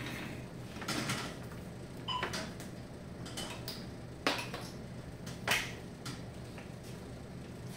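Scattered light clicks and knocks from hands handling a tourniquet machine's air hoses and fittings, the two sharpest about four and five and a half seconds in, over a steady low hum.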